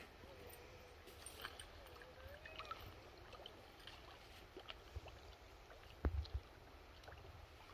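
Faint ambience of flowing shallow river water, with short gusts of wind buffeting the microphone about six seconds in. A faint wavering hum runs through the first two or three seconds.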